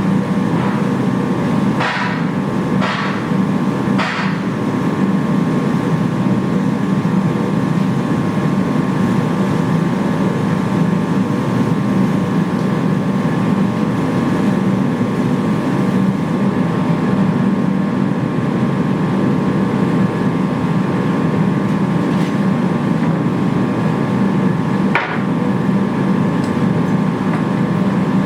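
Forge running steadily with a constant roar and hum from its burner or blower, with three sharp metallic clinks a few seconds in and one more near the end.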